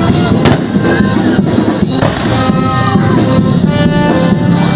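Loud music with drums and held instrument notes, and a few sharp bangs in the first two seconds.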